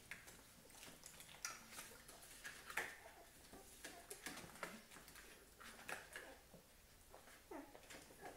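Newborn puppies nursing, faint: scattered wet suckling clicks and smacks, with a few brief whimpers.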